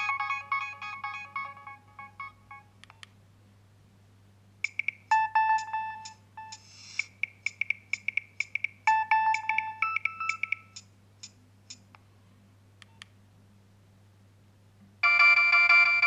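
Nokia 3100 mobile phone playing its built-in electronic ringtones through its loudspeaker, several notes sounding at once in quick rhythmic patterns. One tune ends about two and a half seconds in, a second plays from about five to eleven seconds, and a third starts a second before the end, with a few faint clicks in the pauses.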